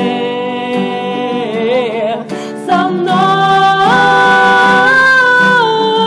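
Two women's voices holding long sung notes in harmony over a nylon-string classical guitar, with a short break about two and a half seconds in before another long held chord.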